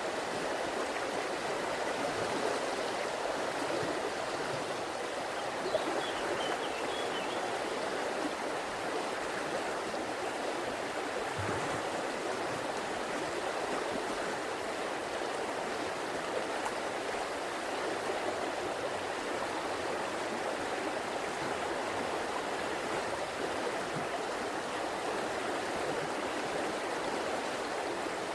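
River water flowing and babbling steadily, an even rushing with no breaks.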